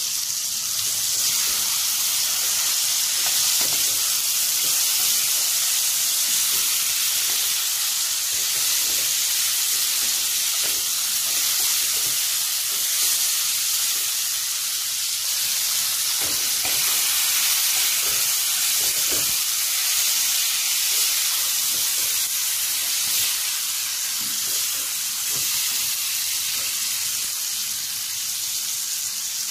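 Bitter gourd slices and chopped tomato sizzling as they fry in a nonstick pan, a steady high hiss, with soft scrapes of a wooden spoon stirring them.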